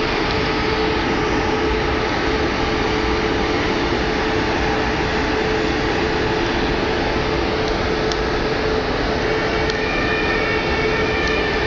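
Standing ICE 2 high-speed train with its on-board equipment running: a steady hum with a constant low tone. A faint higher whine joins near the end.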